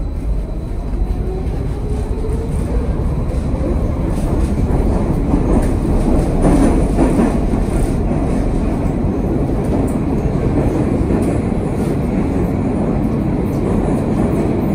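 Minsk Metro train running through the tunnel, heard from inside the car. The traction motors' whine rises in pitch over the first few seconds as the train picks up speed, then gives way to a steady, loud rumble of wheels on rail.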